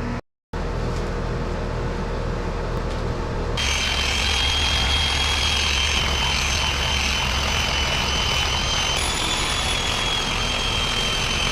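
Electric orbital sander with 320-grit paper running steadily while sanding a plastic car dashboard. A high, steady motor whine joins the low hum about three and a half seconds in.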